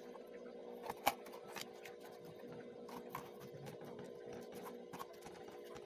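Pre-cut paperboard model pieces handled and fitted together: scattered light clicks and taps of card, the sharpest about a second in, over a steady low hum.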